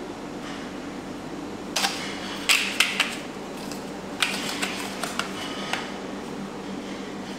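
A run of light, irregular clicks and clacks as a bundle of white lipstick-mould tubes is handled and the tubes knock together, over a steady background hum.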